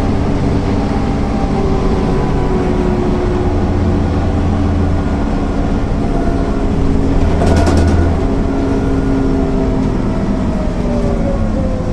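MAN NL 262 city bus's diesel engine and ZF automatic drivetrain running under way, the engine note slowly rising and falling with engine speed. A brief louder burst of noise comes about seven and a half seconds in.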